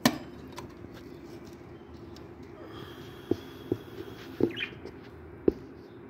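Sharp knocks and taps from handling around a wire bird cage: one loud knock at the very start, then several short taps between about three and five and a half seconds in, over a steady low hum.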